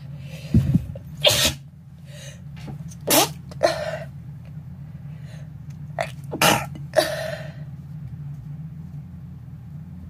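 A person sneezing several times in quick succession, set off by dust from dusting without a mask.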